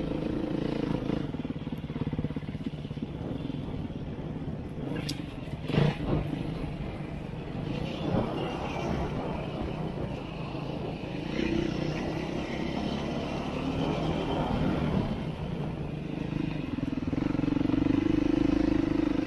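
Beta 390 RRS dual-sport's single-cylinder four-stroke engine running as the bike is ridden off-road, the engine note swelling louder about midway and again near the end. A couple of sharp knocks come about five to six seconds in.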